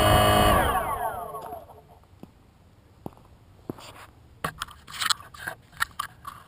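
DJI Phantom quadcopter's motors and propellers winding down after landing, the loud whine falling in pitch and fading out over about two seconds. Then a few scattered clicks and scrapes follow, coming more often in the last couple of seconds.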